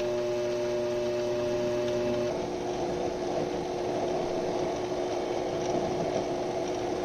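Small machine-tool motor running with a steady hum. About two seconds in the sound turns rougher and noisier, and near the end the steady hum returns.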